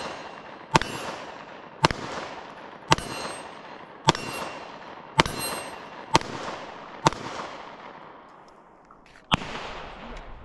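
Glock 43X 9 mm pistol fired seven times at a steady pace of about one shot a second, each shot echoing as it fades, with steel targets ringing when hit. Then a pause in the firing.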